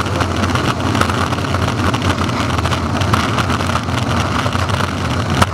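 Longboard wheels rolling over asphalt: a steady low rumble with many small ticks from the rough surface.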